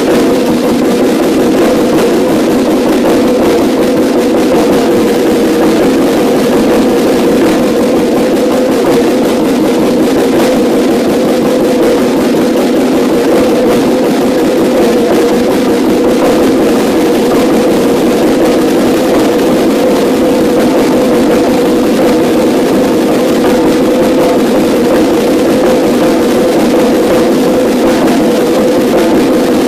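A line of five marching snare drums played together, a loud, dense, unbroken stream of rapid stick strokes.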